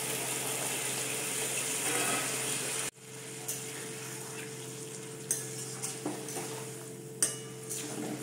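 Mixed vegetables and masala sizzling in a metal kadai just after water has been added. About three seconds in the sound drops off abruptly, and from then on a metal spatula stirs and scrapes against the pan with occasional clinks over a quieter sizzle and a steady low hum.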